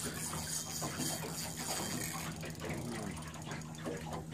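Spinning reel being cranked under load, reeling in line against a hooked sturgeon: a light mechanical whirring and clicking, over a steady low hum.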